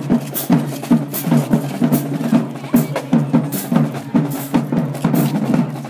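High school marching band playing in the stands, its drums pounding out a steady beat of about two hits a second over low, sustained band tones.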